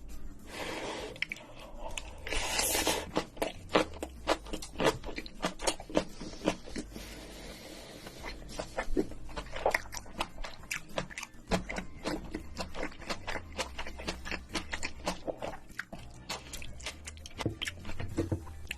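A person chewing and crunching a mouthful of crab-shell fried rice with kimchi: many small irregular wet clicks and crunches, with a couple of louder crunchy bites in the first few seconds.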